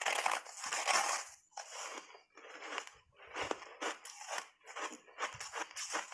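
Matcha-powder-coated block ice being bitten and chewed: a long loud crunch as a big bite breaks off, then a run of crunching chews, two or three a second.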